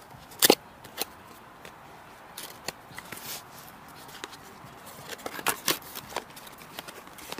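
Cardboard box flaps being pulled open by hand: scattered short knocks, scrapes and rustles of cardboard, the sharpest knock about half a second in and a cluster of taps and scrapes near the end.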